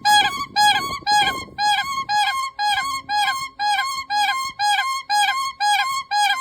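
A bird calling in a fast, even series of rich, pitched, flute-like notes, about three a second, each a short downward-hooked note followed by a higher one.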